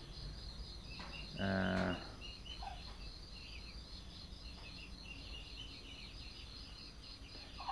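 Insects chirping steadily in a fast pulsing rhythm, faint and high-pitched. About one and a half seconds in, a man gives a short low hum of about half a second.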